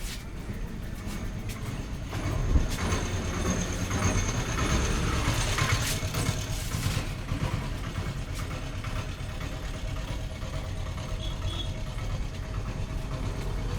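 Steady low rumble of motor traffic, swelling between about two and seven seconds in as a vehicle passes.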